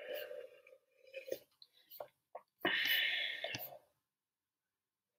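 A person's soft breathing and murmuring under the breath, close to the microphone, with a few faint clicks. The longest, breathiest sound comes a little past the middle.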